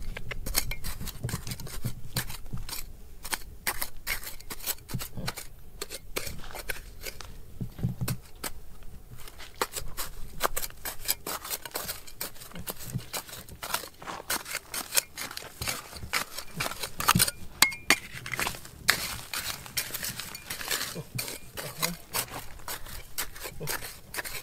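Small hand tools scraping and tapping at rock and gravel, with stones clinking: a dense run of quick, irregular sharp clicks and scrapes, busier in the second half, with a few louder knocks about two thirds of the way through.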